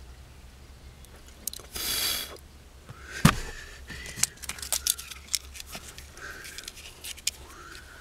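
Solder and flux sizzling briefly under a hot soldering iron as a wire is soldered to a fuse-tap terminal. This is followed by a sharp click and a run of small clicks and taps as the work is handled. A bird chirps short arching calls several times.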